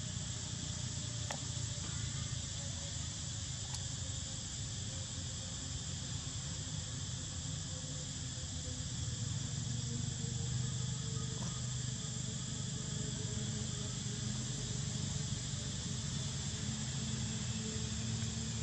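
Steady, high-pitched drone of an insect chorus, unbroken throughout, over a low steady rumble.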